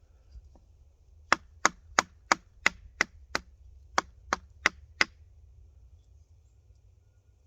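Eleven sharp knocks in two runs, about three a second: seven, a short pause, then four more.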